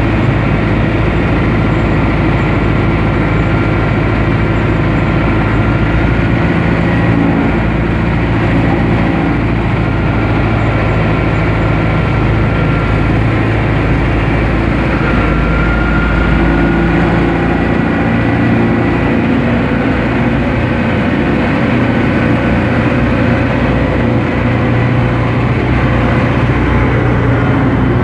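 Diesel engine of a UTB Universal 651 tractor running steadily, heard from the driver's seat, with a faint whine over the engine note.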